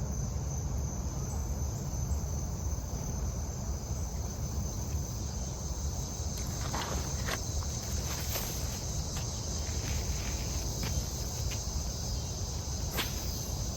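Steady high-pitched trilling of an insect chorus over a low rumble, with scattered light clicks and taps in the second half.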